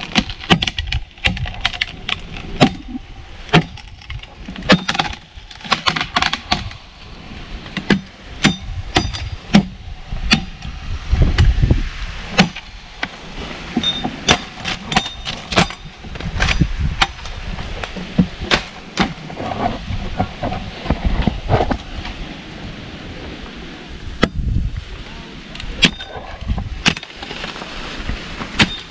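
Irregular sharp knocks and cracks of tree branches being chopped and broken off, with patches of low rumbling in between.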